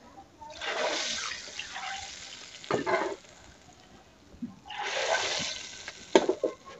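Hot oil tempering (tadka) sizzling in two bursts of about a second and a half each as it is ladled into the kadhi, with sharp clinks of the steel ladle against the pans.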